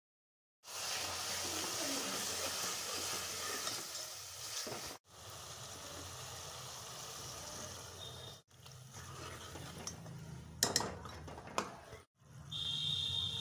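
Chopped tomato masala sizzling in a metal pot, stirred with a steel spoon that clinks against the pot's side a couple of times near the end. The sizzle cuts out abruptly a few times.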